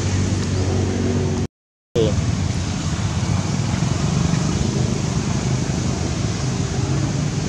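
Steady low rumble and hiss of outdoor background noise with a faint engine-like hum, cut off by a brief gap of silence about a second and a half in, with a short squeak just after the gap.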